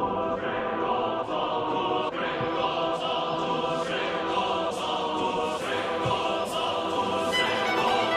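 Background music with choir-like singing and a steady beat.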